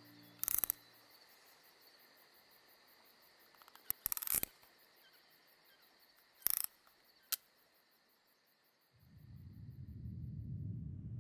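Quiet ambience: a faint steady high chirring, broken by a few short sharp clicks, with a low rumble rising about nine seconds in.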